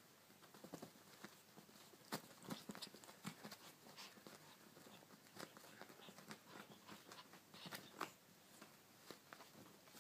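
Faint, irregular rustling and scuffing of a cat wrestling a monkey puppet on a quilted satin bedspread, with scattered sharp clicks and scratches as its paws kick and bat.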